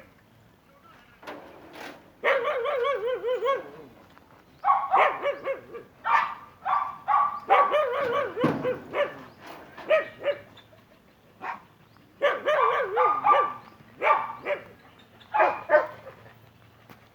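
Kitten meowing over and over: about a dozen wavering, high calls, some drawn out over a second and others short, with brief pauses between them.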